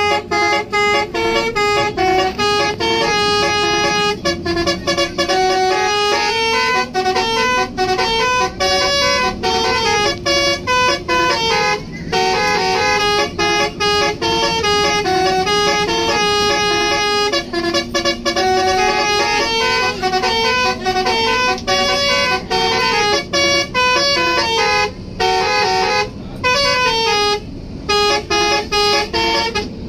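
Basuri telolet bus horn, a multi-tone air horn, playing melodic tunes: quick runs of short notes stepping up and down in pitch, broken by brief pauses between phrases.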